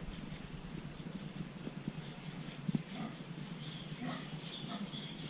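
A pig grunting faintly a few times, with a single sharp knock near the middle.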